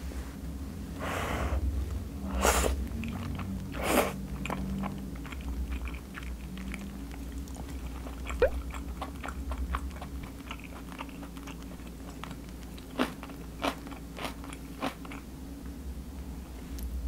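Close-up eating sounds of knife-cut noodle soup: noodles slurped in the first few seconds, then chewing, with several sharp clicks of wooden chopsticks and a wooden spoon against the ceramic bowl.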